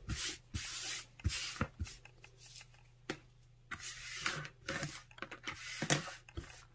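Hands moving craft tools and materials about on a cutting mat: a run of brief rustles and scrapes with a few light knocks.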